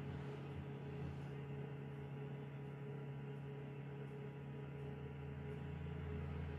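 Low steady electrical hum: room tone, with nothing else distinct.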